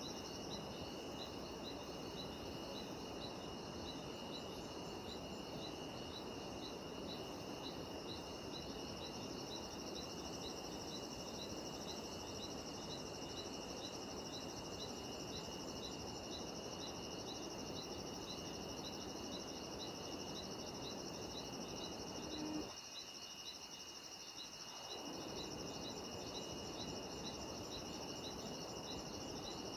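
Chorus of cicadas and other insects droning steadily in tropical montane forest, with one insect chirping in a regular pulse about twice a second, over a constant low rushing background. The low rush drops away briefly about two-thirds of the way through.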